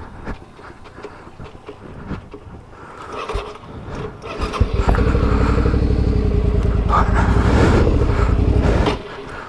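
Motorcycle engine running close and loud from about five seconds in, a steady low rumble, cutting off suddenly near the end. Before it come only quieter scattered knocks.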